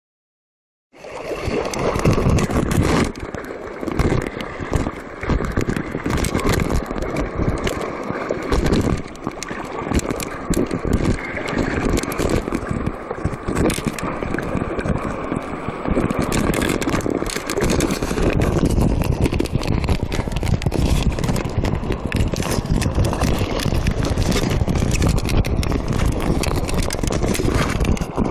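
Camera microphone sealed inside a waterproof underwater housing: continuous muffled rubbing, scraping and knocking as the case is handled and moved about at the water surface, starting about a second in.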